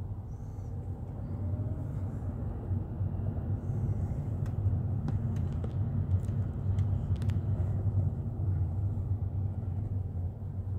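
Steady low rumble of road and engine noise inside a moving car, with a few faint clicks about four to seven seconds in.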